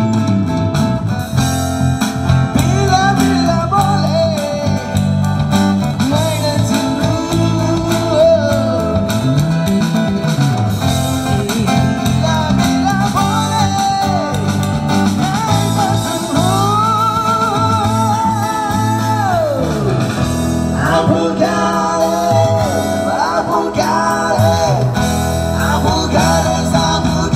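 A live street band performing: a woman singing into a microphone over amplified acoustic guitar and drums, with some long held notes in the melody.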